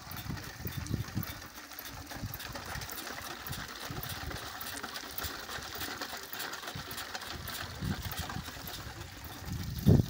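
Hand-cranked rope pump being turned: its bicycle-wheel pulley and crank mechanism click and rattle rapidly and steadily, with water pouring from the outlet into a plastic bucket. A few low thumps near the start and again about 8 s in.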